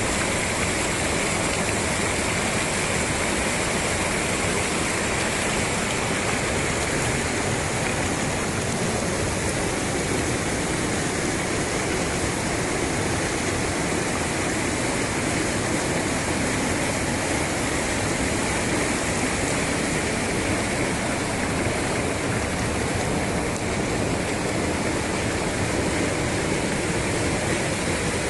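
Rocky mountain stream rushing and splashing over boulders, a steady, unbroken flow of white water.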